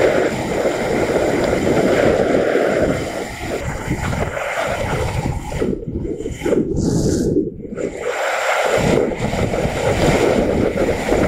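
Wind rushing over the microphone of a rider on a moving motorcycle: a loud, steady rush that thins out briefly a few times past the middle.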